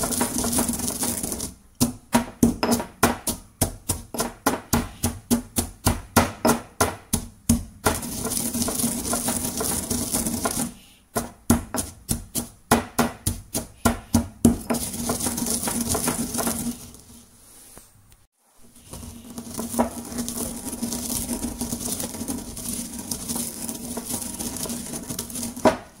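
Stone mortar and pestle grinding coffee beans: stretches of steady scraping as the pestle is pushed and rotated through the crushed beans, alternating with two runs of quick pounding strikes, about three a second. The grinding stops briefly about two-thirds of the way in, then the scraping resumes.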